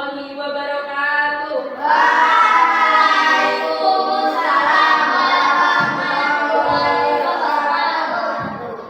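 A group of voices singing together in long held notes, louder from about two seconds in and fading at the very end.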